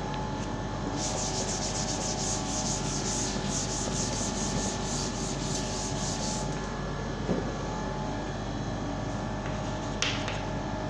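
Chalkboard duster scrubbed back and forth across a chalkboard, quick rhythmic strokes of about four to five a second lasting some five seconds. Near the end, chalk touches the board briefly as writing begins.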